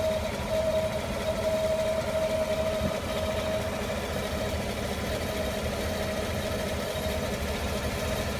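2015 5.3L V8 idling with a steady high whine, the intermittent 'vacuum' noise, loud for about the first three seconds and then fading away over a low engine rumble. The owner finds no pattern or cause: belts are good, the fans, AC and accessories are off.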